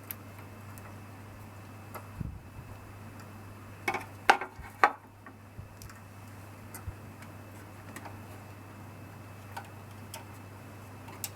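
Small metal engine parts and tools clicking and clinking as they are handled during reassembly of a lawnmower carburetor and fuel tank, with a few louder knocks about four to five seconds in, over a steady low hum.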